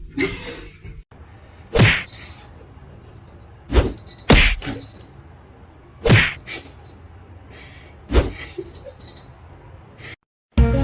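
A series of thuds or knocks, about half a dozen, coming roughly every two seconds, two of them close together about four seconds in.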